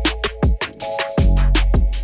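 Electronic background music with a fast drum-and-bass beat: sharp drum hits several times a second over deep bass notes and sustained synth chords.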